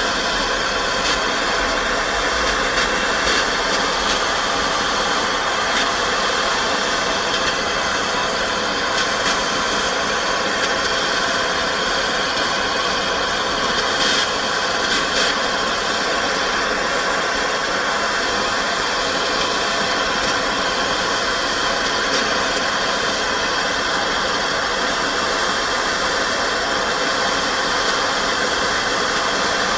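A machine running steadily: an even hiss with several faint fixed tones, unchanging throughout.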